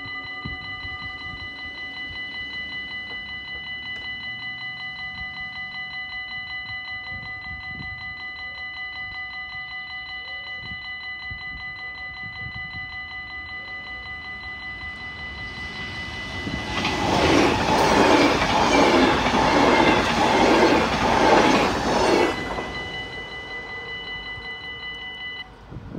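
Level-crossing warning bell ringing rapidly and steadily while the half barriers are down. For about six seconds in the middle, an electric train passes over the crossing with a rhythmic clatter of wheels, louder than the bell. The bell stops near the end.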